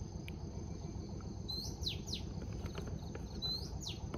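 A wild bird calling twice, each phrase a short rising note followed by two quick downward-sweeping whistles, over a steady high insect drone and a low steady outdoor rumble.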